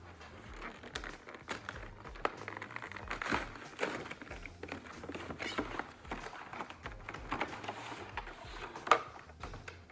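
Packaging of a Pokémon card collection box being handled and opened: crinkling and rustling of plastic and cardboard with many small irregular clicks, and one sharp snap near the end.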